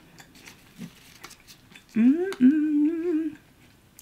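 A woman humming with closed lips: a short rising "mm" about two seconds in, then a longer held note with a slight waver, lasting about a second and a half in all. Faint mouth and food clicks come before it.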